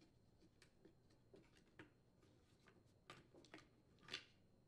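Faint scattered clicks and light taps of a wire hook and fuel line against a hedge trimmer's plastic fuel tank fill spout as the fuel line assembly is fished out. There is a small cluster of clicks about three seconds in, and the loudest is a short scrape just after four seconds.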